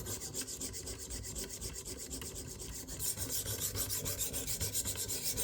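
A 300-grit sharpening stone on a KME guided-rod sharpener rubbing back and forth along the edge of a thin, flexible fillet knife in quick, even strokes: a raspy scraping, a little louder from about three seconds in. The stone is working out the scratches left by the coarser 140-grit stone.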